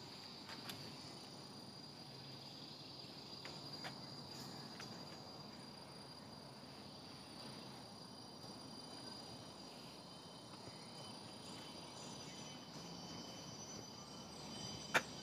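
Faint, steady high-pitched drone of insects, with a second, higher tone joining for a few seconds midway. A sharp click sounds just before the end.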